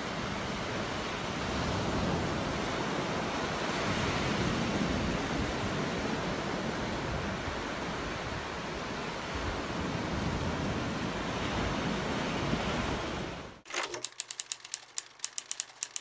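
Steady rushing noise of sea surf and wind on a beach. Near the end it cuts off suddenly, and a quick run of sharp, typing-like clicks plays as a logo sound effect.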